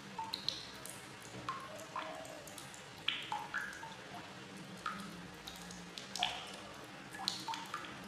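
Water drops plopping into water at irregular intervals, each a short pitched plink, over a faint low hum.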